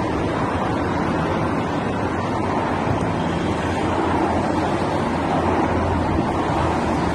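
Steady rush of road traffic on a busy dual carriageway: tyres and engines of cars and ice cream vans driving past.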